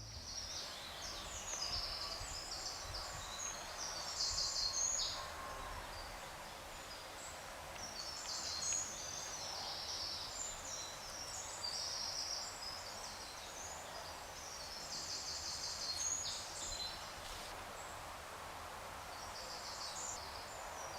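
Woodland birdsong: several small birds singing, with repeated chirps and trills, over a low steady rumble.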